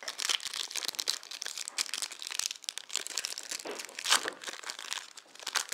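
Foil wrapper of a Pokémon trading card booster pack crinkling and tearing as it is opened by hand, loudest about four seconds in.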